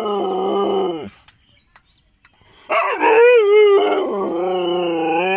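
Chippiparai hound howling in long, wavering cries. One howl falls away about a second in, and a second one starts about halfway through. The tied-up male is protesting and demanding to be let loose while the female is taken out.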